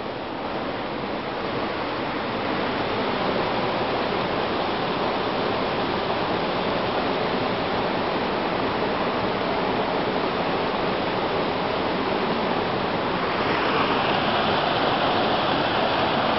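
Khoyachhora waterfall and its stream rushing: a steady, even noise of falling water, turning slightly brighter and louder near the end.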